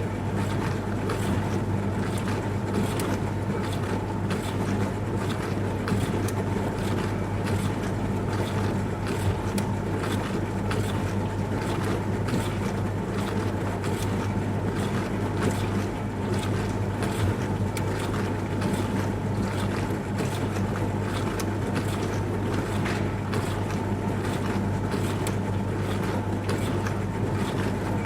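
Dishwasher running mid-cycle: the wash pump motor hums steadily under the rushing, spattering sound of water spraying inside the tub.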